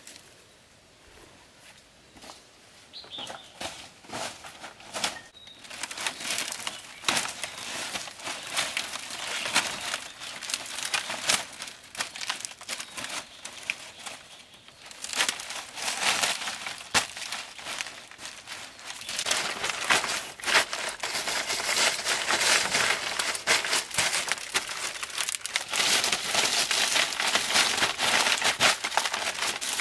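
Rustling and crinkling of a woven sleeping mat and the dry palm fronds beneath it as the mat is unrolled and smoothed flat by hand. It is faint for the first few seconds, then grows denser and louder.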